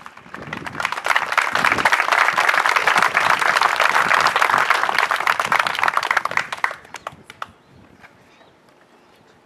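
Crowd applauding. The clapping swells within about a second, holds steady for about five seconds, then dies away to a few last scattered claps.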